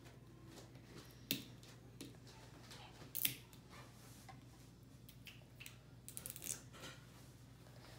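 Fingers picking at and peeling the wrapping of an L.O.L. Surprise toy ball: faint scattered crinkles and clicks, the clearest about a second in, around three seconds in and just after six seconds.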